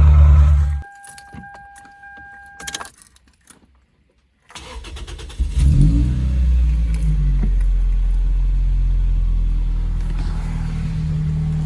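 Toyota Celica inline-four with a new stainless cat-back exhaust: it is running, then cuts off about a second in, and a steady electronic chime sounds for about two seconds. About five seconds in the engine starts again, revs briefly and settles into a steady idle through the new exhaust.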